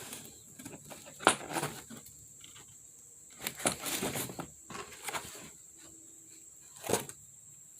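Scattered knocks and shuffles, the strongest about a second in, about three and a half seconds in and near seven seconds, over a faint steady high-pitched whine.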